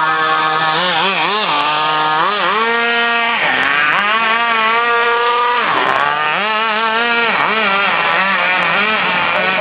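Small nitro engine of a radio-controlled model car running at high revs. Its pitch goes up and down with quick throttle blips in the first two seconds, then holds steadier with two brief drops in revs.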